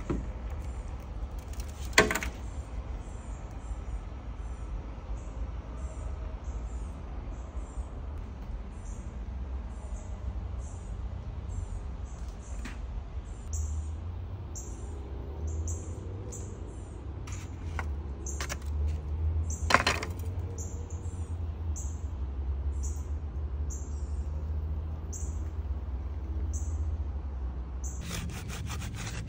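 A short high chirp repeating about twice a second over a steady low rumble, with two sharp knocks, one about 2 s in and one near 20 s.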